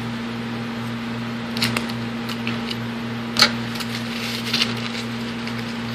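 Paper tissue rustling and a few light clicks as a ring is handled and wiped in it, over a steady low hum. The sharpest click comes about halfway through.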